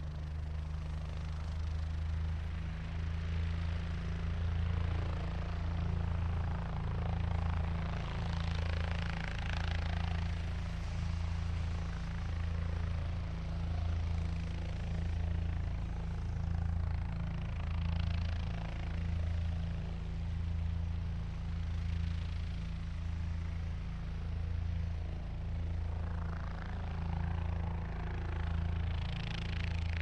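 Helicopter running: a steady low drone from engine and rotor with a slow, even pulsing, rising a few times into swells of higher rushing sound.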